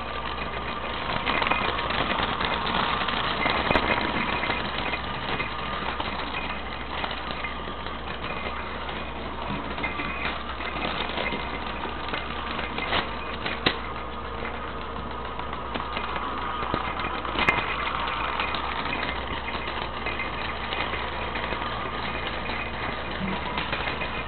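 Plastic cat-toy mouse track rattling steadily as the toy runs around it, with a few sharp knocks in the second half.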